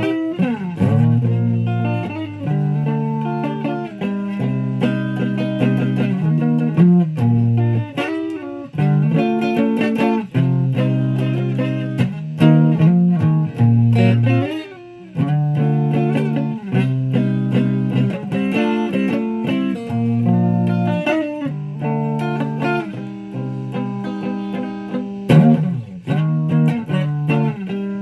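A guitar playing a run of sustained notes and chords, with sliding pitch bends at the start and again near the end. It drops away briefly about halfway through.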